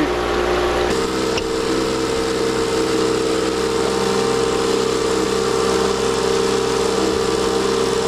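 Boat motor running at a steady speed, a constant hum with a steady pitch; the tone shifts a little about a second in.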